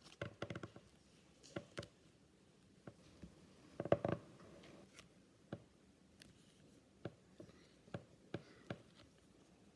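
Trading cards being handled and laid down: scattered light taps and clicks, with a louder rustle about four seconds in.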